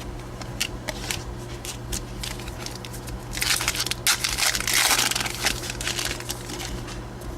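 Foil wrapper of a baseball card pack crinkling and tearing, loudest for about two seconds in the middle. Light clicks of cards being handled come before it.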